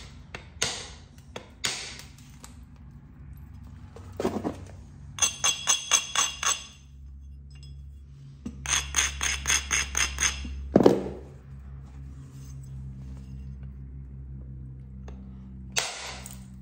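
Flint knapping on a heat-treated chert knife blank: a couple of sharp knocks, then two quick runs of light taps that ring glassily, and a heavier strike about eleven seconds in. A steady low hum runs underneath.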